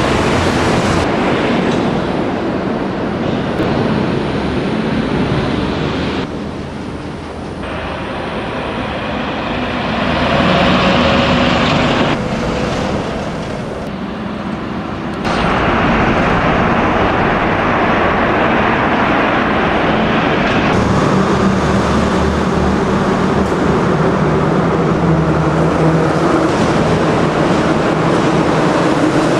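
Road traffic: vehicles passing, a steady mix of engine hum and road noise that changes abruptly several times.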